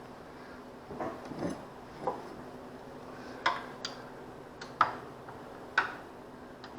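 Hand tools and metal parts clinking and knocking, six or seven separate sharp clinks a second or so apart, as the tractor engine's mounting bolts are worked loose.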